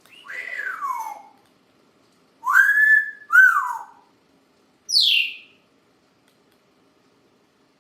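African grey parrot whistling. First a falling whistle, then a two-part whistle that rises and falls about two and a half seconds in, and a short high downward squeak about five seconds in.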